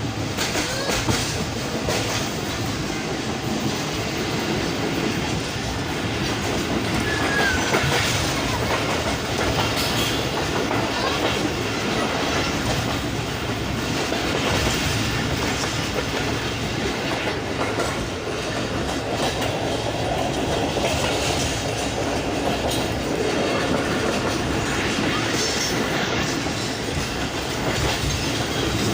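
Passenger train running at speed: a steady rumble of wheels on the rails with a continuous clickety-clack of wheels over rail joints.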